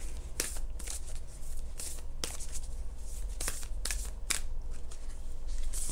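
A deck of oracle cards being shuffled by hand: short, irregular swishes and taps of card stock sliding against card stock.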